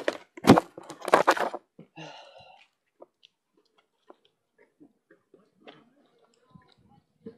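Fabric rustling and handling as a beekeeping jacket and veiled hat are put on: loud crinkling and brushing for the first second and a half, then only faint scattered taps and clicks.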